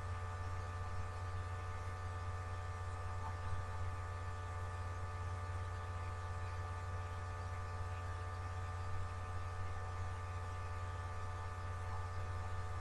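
Steady electrical mains hum and buzz, a low drone with a cluster of steady higher tones above it.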